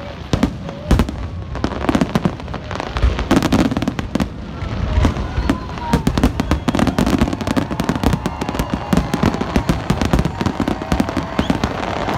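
Large fireworks display: a dense, irregular run of overlapping bangs and crackles, with deeper booms mixed in.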